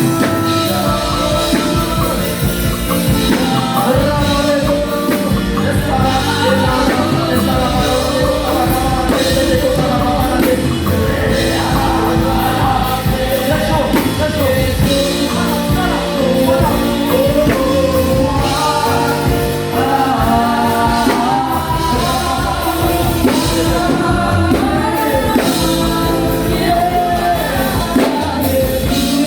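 Worship song: sung vocals over a full band with drums.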